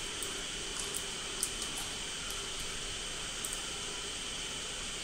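Steady hiss of room and microphone noise with a faint steady high tone, and a few short, faint clicks from the computer mouse, the clearest about a second and a half in.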